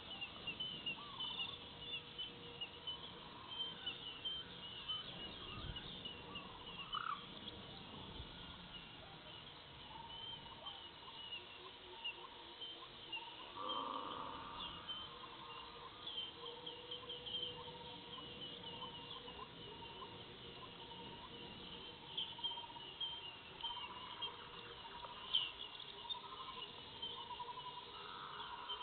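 Faint forest ambience: a continuous chorus of high, rapid chirping calls, with lower bird calls breaking in now and then, some of them quick repeated notes.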